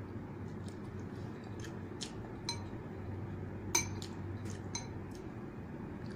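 Metal fork and spoon clinking and scraping against a ceramic noodle bowl while eating: a dozen or so short, irregular clinks, a few of them ringing briefly, the sharpest about two-thirds of the way through.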